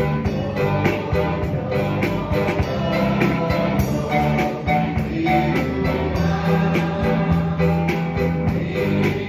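Electronic keyboard playing a song with chords and melody over a steady drum beat.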